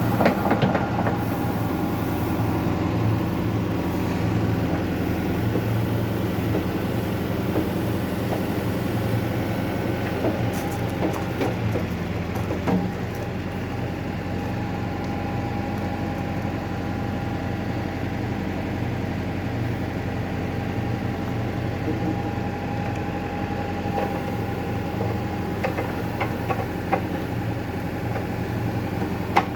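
Caterpillar 428F backhoe loader's diesel engine running steadily while working its rear bucket and hydraulics to pull metal fence posts from the ground, with a few short metallic knocks now and then.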